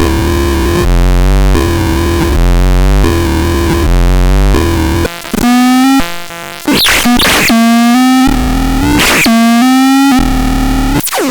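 Synthesizer playing loud, buzzy sustained notes. For the first half a low note steps back and forth between two pitches about every second. Then a higher held note is broken by quick swooping sweeps, and the sound cuts off suddenly at the end.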